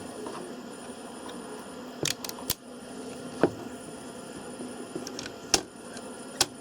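Scattered sharp clicks and taps, about six of them, from the parts of a Canon 725 toner cartridge being handled and fitted during reassembly, over a steady low hum.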